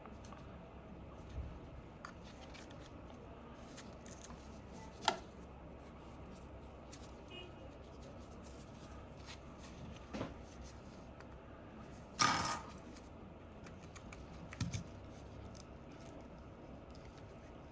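Scattered small clicks and scrapes of a pry tool working against an iPhone XR's battery and frame while prying the stuck old battery loose. A sharp tick about five seconds in, and one longer, louder scrape a little past two-thirds through.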